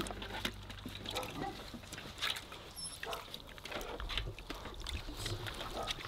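Weimaraner puppies making small whimpers and grunts amid scattered scuffling and clicks.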